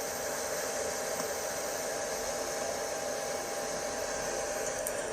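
A steady, even hiss with a faint, steady high tone running through it.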